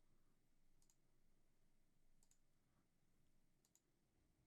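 Near silence with faint computer mouse clicks: three quick double clicks about a second and a half apart.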